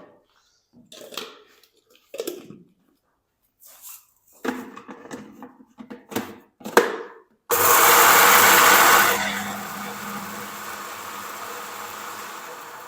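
Electric mixer grinder coarsely grinding dry-roasted whole spices: after several short knocks and clatters, the motor starts suddenly and runs loud for under two seconds, then drops to a lower, quieter running that fades away near the end.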